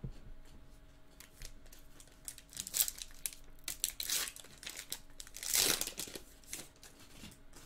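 Foil wrapper of a baseball card pack crinkling and tearing as it is pulled open by hand: irregular crackles, with the longest, loudest tear about two-thirds of the way through.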